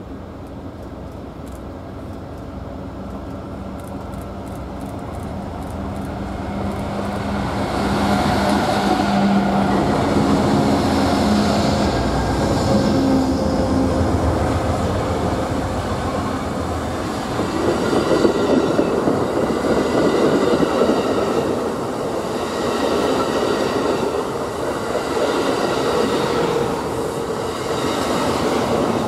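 Amtrak passenger train passing close by. The diesel locomotives, including ALC-42 Chargers, grow louder as they approach and their engines drone past in the first half. Then the bi-level Superliner cars roll by with steady wheel-on-rail noise and clatter.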